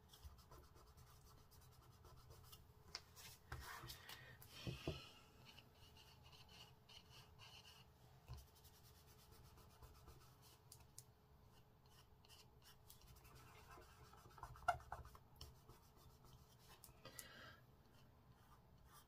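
Faint scratching of a white pastel pencil on card, alternating with fingertips rubbing the pastel into the paper, with a few soft rustles.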